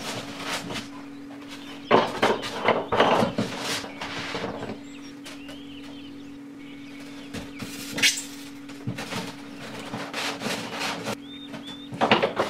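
Hands handling a polystyrene foam box and a lamp-holder cable: foam rubbing and squeaking and the wire rustling, in short spells about two seconds in, around eight seconds and near the end, over a steady low hum.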